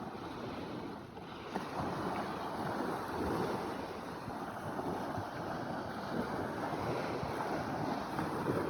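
Sea waves washing: a continuous rush of surf that swells and eases.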